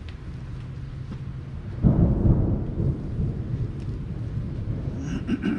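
Thunder rumbling: a sudden low roll about two seconds in that slowly fades away.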